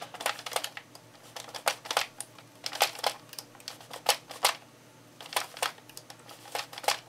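Sentro 22-needle plastic knitting machine being hand-cranked, its needles and crank mechanism clicking several times a second, unevenly and with a couple of brief pauses. It is knitting the last row before casting off.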